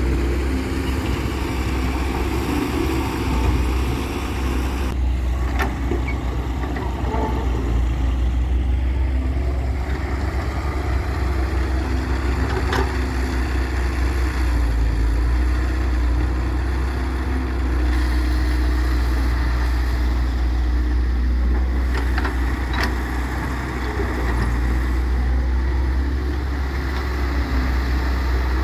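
Diesel engines of a wheeled hydraulic excavator and a farm tractor running steadily while the excavator digs soil and loads the trolley. There are a few short knocks.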